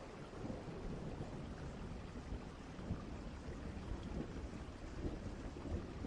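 Distant thunderstorm ambience: steady rain with a low, rolling rumble of far-off thunder.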